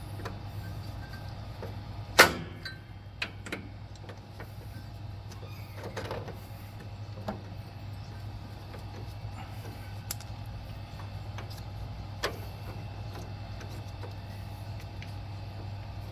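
Metal parts of a lawn tractor's idler pulley, spacer and bolt knocking and clicking now and then as they are worked into place by hand, with the loudest knock about two seconds in, over a steady low hum.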